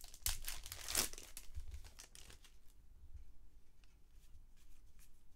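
A plastic trading-card pack wrapper crinkling as it is torn open and cards are pulled from it, loudest in the first two seconds. Then faint rustles and small clicks as the cards are slid through by hand.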